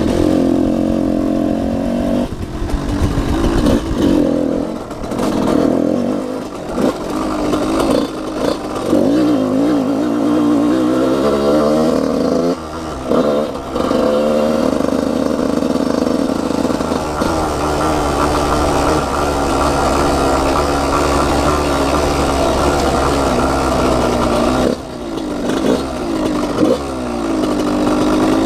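Yamaha YZ125 two-stroke dirt bike engine revving under hard riding, its pitch climbing and falling through the gears with several brief dips in loudness. In the later part it holds a steady high pitch for several seconds.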